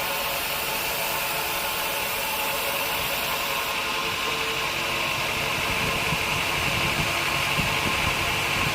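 Sawmill band saw and its drive motor running steadily, a constant machine drone with a high hiss.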